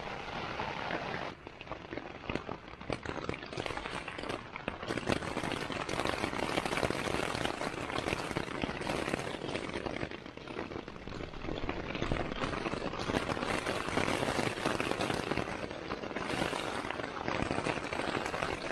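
Heavy thunderstorm rain pattering on the fabric of a Jack Wolfskin backpacking tent, heard from inside the tent, rising and falling in intensity.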